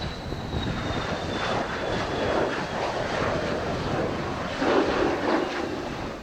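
Mitsubishi F-2 fighter's General Electric F110 turbofan running, a dense jet roar with a high turbine whine that slides slowly down in pitch over the first couple of seconds. The roar swells louder briefly about five seconds in.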